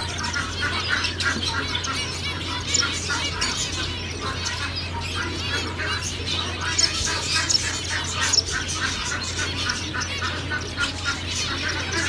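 A flock of zebra finches calling, many short calls overlapping several times a second, over a steady low hum.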